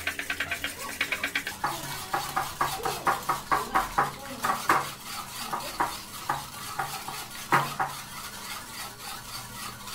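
Wire balloon whisk beating eggs and sugar in a glass bowl: quick rhythmic clinking of the wires against the glass, a few strokes a second, with a couple of louder knocks in the second half.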